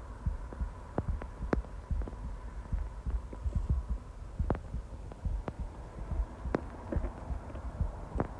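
Stomach growling: a continuous low gurgling rumble broken by irregular sharp pops and clicks.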